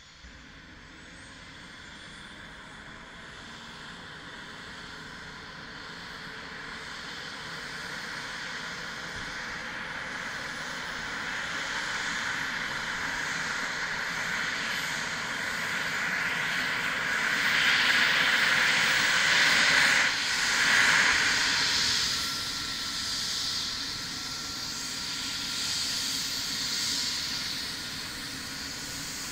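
Airbus H135 (EC135 P2) helicopter's twin turboshaft engines starting up, with a rising turbine whine and rotor noise building steadily as the main rotor spins up. It is loudest a little past halfway, then eases slightly.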